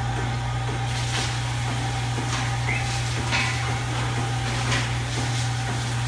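Milking parlor's vacuum milking system running with a steady low hum, with short hisses and knocks every second or so as milking units are handled on the cows.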